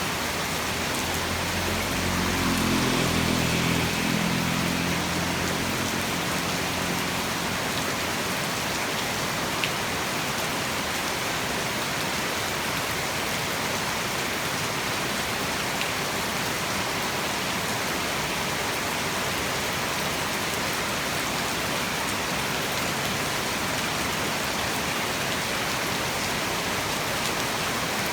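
Heavy tropical rain falling steadily, an even hiss. A low hum swells and fades in the first several seconds.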